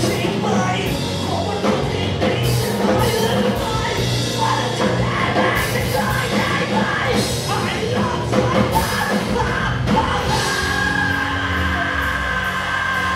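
Post-hardcore band playing live: shouted vocals over drums, bass guitar and keyboards.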